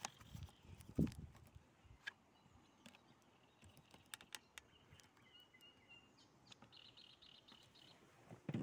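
Quiet lake ambience with faint birdsong, thin high chirps, mostly in the second half. There is a soft knock about a second in and a few light clicks from the camera being handled.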